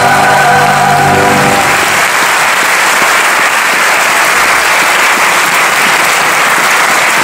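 Live music ends on a sustained final chord about two seconds in, and an audience breaks into steady applause that carries on.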